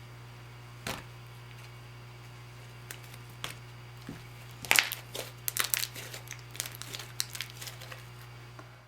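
Slime being squished and pulled by hand, giving a click about a second in and then, from about halfway through, a run of sticky clicks and crackles. A steady low hum sits underneath.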